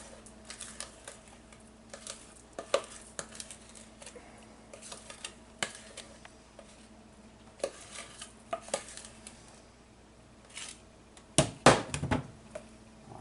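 Utensil scraping and clinking against a mixing bowl as cake batter is emptied into a baking pan: scattered light clicks and scrapes, with a few louder knocks near the end.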